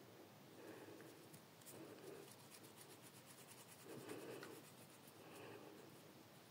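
Near silence with faint rubbing strokes about once a second: palms rolling a lump of soft plasticine between them.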